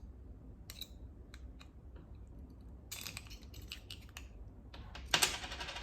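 Light clicks and taps of a key fob's plastic case and coin-cell battery being handled, then a denser scraping rattle starting near the end.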